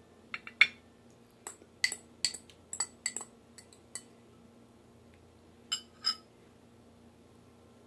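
A metal eating utensil clinking against glass dishes: a quick run of light clinks in the first four seconds, then two more about six seconds in.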